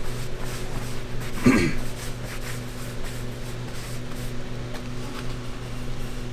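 Steady low hum with a few faint light clicks, and one short sound that bends in pitch about a second and a half in.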